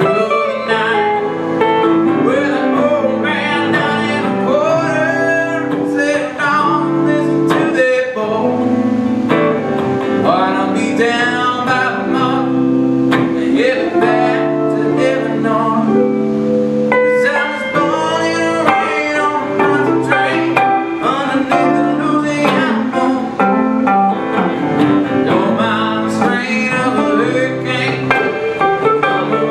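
Two electric guitars played live through small amplifiers, one keeping the chords going while the other plays a lead line with bent, wavering notes.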